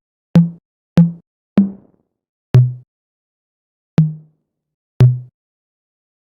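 Electronic drum-machine one-shot samples auditioned one after another: six short low drum hits, each a sharp attack with a quickly fading pitched tone, the pitch differing from hit to hit. The gaps widen after the third hit.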